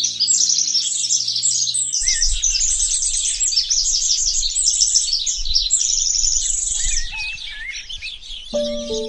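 Many small birds chirping rapidly and overlapping in a dense twittering chorus, with a few gliding whistles near the end. Music with held notes plays under the first two seconds and comes in again near the end.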